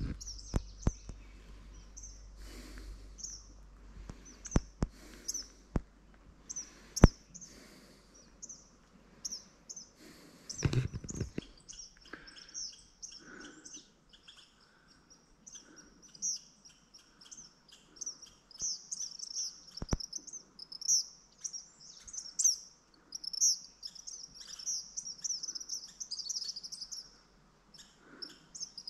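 Small songbirds chirping and twittering in quick, high runs, growing busier and louder in the second half. In the first half a few sharp clicks and knocks are heard, with a heavier thump about eleven seconds in.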